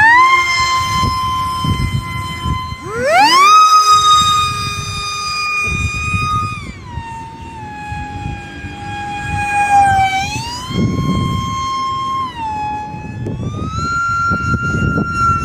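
Small RC plane's 2900kv brushless motor and 3x4 propeller whining in flight, its pitch sweeping up and down as the throttle is opened and eased: it climbs at the start, jumps higher about three seconds in, drops off near the middle, and climbs again twice later. Rumbling wind noise runs underneath.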